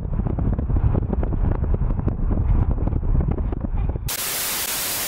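Low road and engine rumble inside a moving car, cut off abruptly about four seconds in by a steady burst of TV-static hiss.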